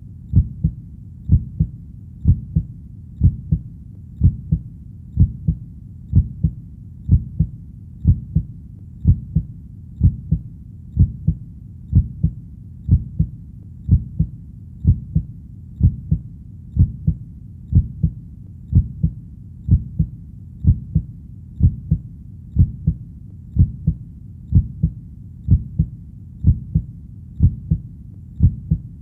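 Heartbeat sound: a steady, slow lub-dub, each beat a low double thump, about one beat a second.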